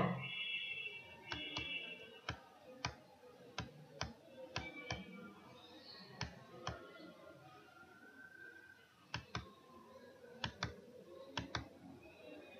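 Faint, irregular clicking at a computer: single sharp clicks, often one or two a second, with a few longer gaps.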